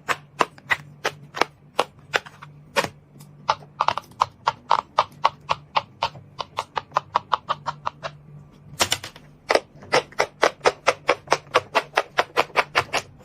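Silicone pop-it fidget toy having its bubbles pressed one after another: a run of sharp pops, several a second, getting quicker, with a short break a little past halfway.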